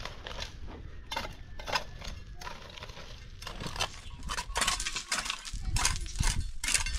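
Mason's trowel scraping and tapping on cement and stone in short, irregular strokes, which come thicker and faster in the second half.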